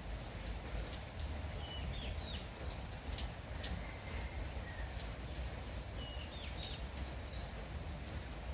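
Light rain falling steadily, with scattered sharp drips. A small bird sings a short phrase of quick up-and-down high notes twice, about two seconds in and again about six seconds in.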